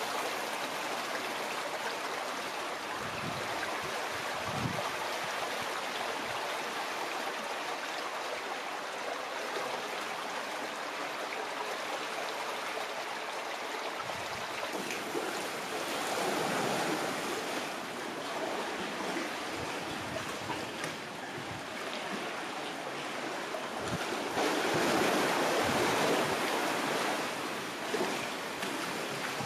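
Cantabrian Sea water washing and lapping among the rocks of a sheltered inlet, a steady wash that swells louder around the middle and again near the end.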